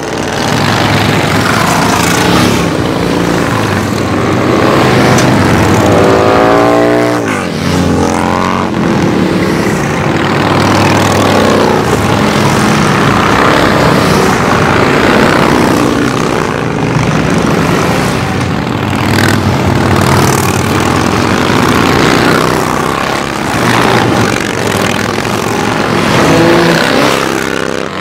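A steady stream of big cruiser and touring motorcycles riding past at low speed, their engines rumbling one after another. About seven seconds in, one engine note falls sharply in pitch.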